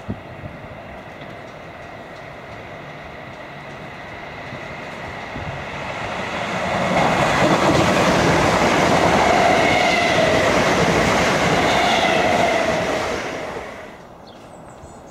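Class 317 electric multiple-unit train approaching and passing close at speed: wheel-on-rail rumble and a motor whine swell for several seconds, with the whine slowly falling in pitch. The sound drops away sharply near the end.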